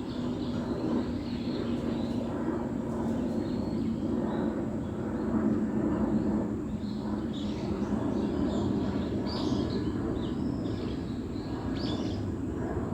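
Small birds chirping in short, high calls, more of them in the second half, over a steady low rumble.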